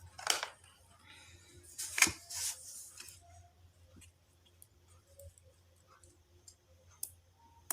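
Hands handling small electronic parts: a few sharp clicks and brief rustles, the loudest click about two seconds in, then faint scattered ticks.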